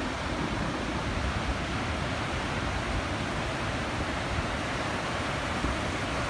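Heavy Pacific surf breaking and washing in over a boulder beach: a steady rushing noise with no single wave crash standing out.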